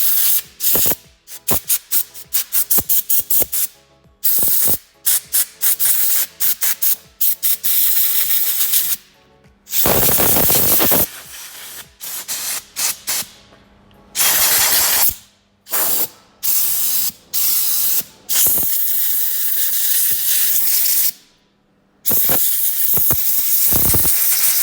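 Compressed-air blow gun blasting dirt out of a cabin heater blower motor, first in a quick run of short puffs, then in longer blasts of one to three seconds with pauses between. The dust caked inside had been making the motor squeal and stick.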